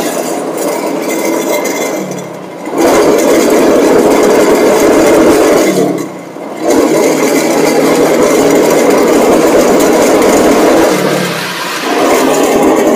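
Motorcycle rickshaw (tuk tuk) engine running loudly under way, its noise dropping away briefly three times, about every four seconds, before picking up again.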